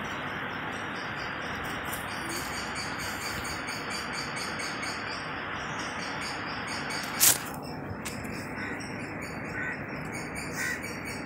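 Outdoor ambience: a steady hiss, with a few short bird chirps in the second half. A single sharp click about seven seconds in is the loudest sound.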